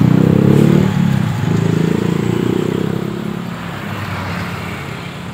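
A motor vehicle's engine running close by, loudest at first and then fading steadily as it moves away.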